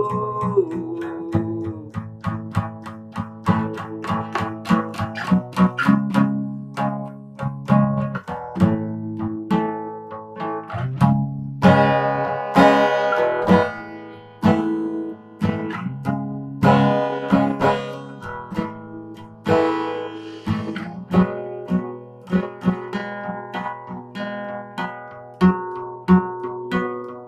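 Solo acoustic guitar played by hand in an instrumental passage: plucked single notes and chords ringing out one after another, with a louder, brighter chord about twelve seconds in.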